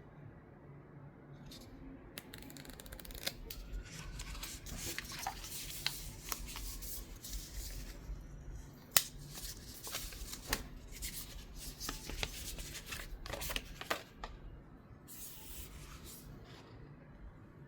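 Hands unpacking OnePlus 15 phone packaging: rustling, scraping and tearing of paper and plastic, with many sharp clicks and one louder click about nine seconds in.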